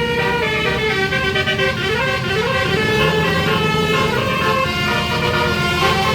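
Bus basuri horn, a musical air horn with several trumpets, playing a running tune of held notes that step up and down in pitch, with an upward slide about two to three seconds in.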